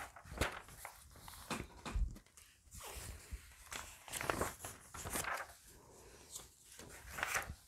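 Pages of a printed paper catalogue being leafed through: irregular rustling and flapping of paper, with a couple of soft thumps.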